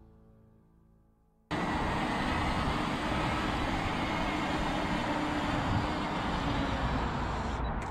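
Background music fading out, then, starting abruptly about a second and a half in, a steady rushing noise with a strong low rumble.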